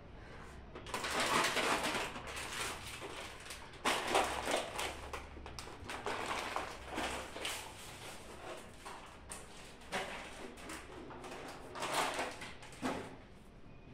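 Irregular rustling and light knocks of household items and packaging being handled and put away, in several short bursts over a faint steady hum.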